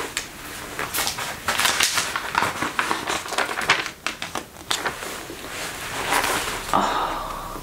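Glossy magazine pages rustling and being handled and turned, a run of crisp crinkles and short crackles, mixed with the creak and rub of a leather jacket and leather trousers as she moves.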